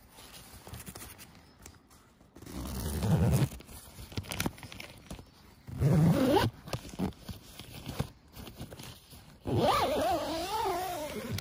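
An animal calling three times, each call loud and pitched. The last call, near the end, is the longest and wavers and falls in pitch.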